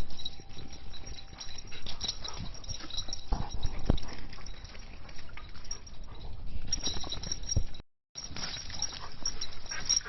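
Dogs moving about on a walk: irregular footfall thuds and clicks with dog noises mixed in. The sound cuts out briefly about eight seconds in.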